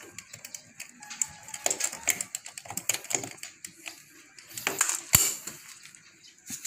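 Irregular light clicks and knocks of a plug being worked back into a small generator engine by hand, with one sharper knock about five seconds in.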